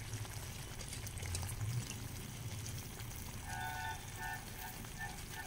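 Chicken curry simmering in a steel pot over a wood fire, a steady low bubbling and hiss, as fresh fenugreek leaves are pressed into it by hand. Near the end a run of short, faint beeps sounds several times.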